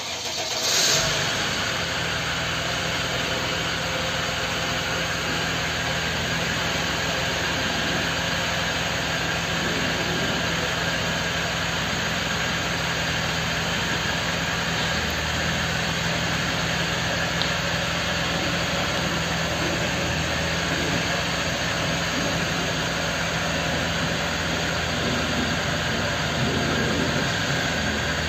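The Mercedes OM642 3.0-litre V6 turbodiesel of a 2007 Dodge Sprinter van, the freshly replaced engine, starts up within the first second and then idles steadily.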